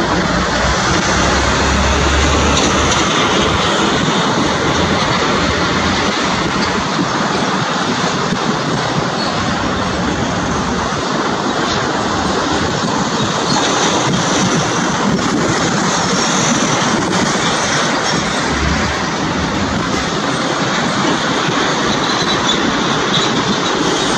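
Boeing 737-800's CFM56-7B turbofan engines at takeoff thrust through the takeoff roll and liftoff: a loud, steady, even roar.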